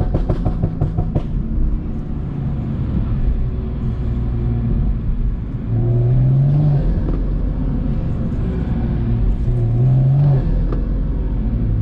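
BMW M340i's turbocharged 3.0-litre inline-six, fitted with an aftermarket intake, pulling hard under throttle. In the first second there is a rapid fluttering chatter: turbo flutter as the throttle closes. The engine note climbs in pitch twice more, about six and ten seconds in.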